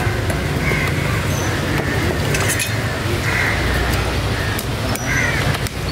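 Busy open-air market background: a steady low rumble of road traffic and engines, with scattered distant voices or calls over it.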